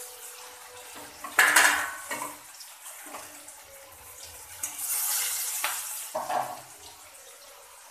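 Pieces of raw katla fish dropped into hot oil in a metal wok. Each one sets off a burst of sizzling and spitting: a sharp, loud one about a second and a half in, a longer one around five seconds, and a short one just after six. A metal spatula clinks against the wok and the plate between them.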